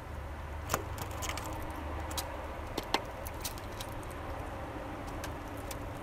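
Eurasian bullfinch pecking and cracking sunflower seeds in a feeder tray: irregular sharp clicks, the loudest about a second in and near three seconds in.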